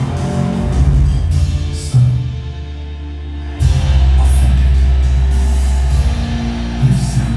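Music with heavy, deep bass from a Dolby Atmos demo reel, played through a Zebronics Juke Bar 9700 soundbar and heard in the room. About two seconds in the music drops back, then a strong bass swell comes in at about three and a half seconds.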